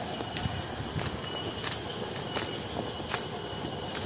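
Steady chorus of cicadas, an even high-pitched drone, with light footsteps on a dirt path ticking about every two-thirds of a second.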